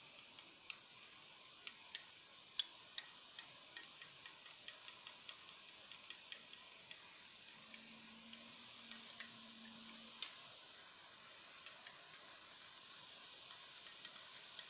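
A metal spoon stirring miso paste and water in a small glass bowl, clinking against the glass in quick, irregular taps as the lumps are worked out.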